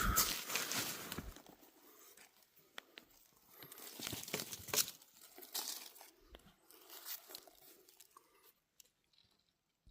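Dry leaves and forest litter crunching and rustling in several irregular bursts, fading away near the end.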